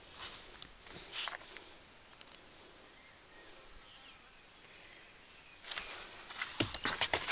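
Faint handling noise from a handheld camera: soft rustles and a few clicks, growing louder and busier near the end, over a quiet background hiss.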